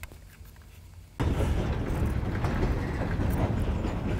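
Freight train of hopper cars moving along the track: a steady low rumble with scattered knocks from the cars, starting suddenly about a second in after a faint low hum.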